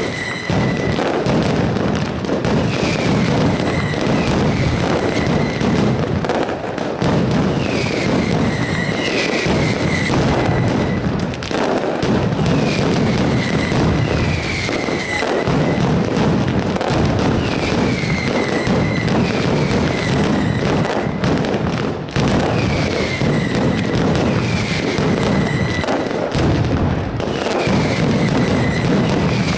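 Mascletà: a dense, continuous barrage of ground firecrackers exploding in rapid succession, loud and unbroken. A high whistle that slides down in pitch and then holds recurs every two to three seconds through the barrage.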